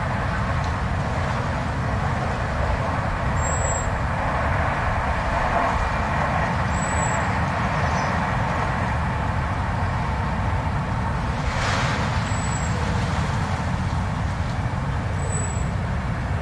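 Blizzard wind blowing steadily, a low rumble with a rushing hiss over it, and one brief stronger rush about twelve seconds in.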